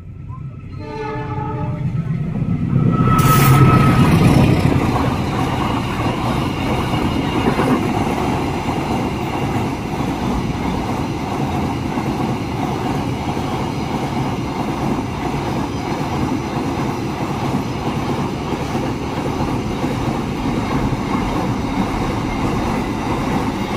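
Container freight train passing: a short horn call as the locomotive arrives, loudest about three to four seconds in, then the long line of container wagons rolling past steadily.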